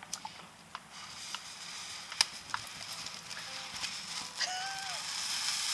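Small consumer fireworks crackling: scattered sharp pops, the loudest about two seconds in, over a hiss that grows towards the end. A brief whistle-like tone comes about four and a half seconds in.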